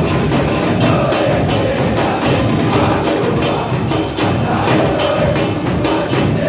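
A football supporters' drum band of drums and cymbals beating a fast, even rhythm, with a crowd of fans singing a chant along with it.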